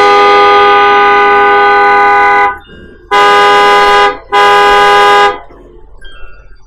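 Car horn honking: one long blast, then two shorter blasts in quick succession.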